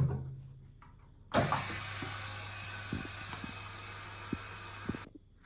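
Bubble remover machine running: a steady air hiss over a low motor hum that starts abruptly just over a second in and cuts off abruptly near the end, with a few light clicks during the run.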